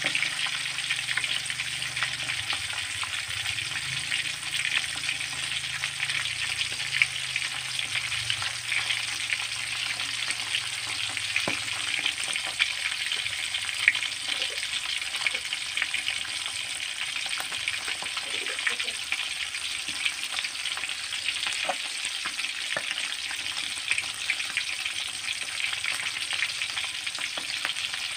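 Milkfish pieces frying in oil in a steel wok: a steady sizzle full of fine crackling, with a few sharper pops of spattering oil.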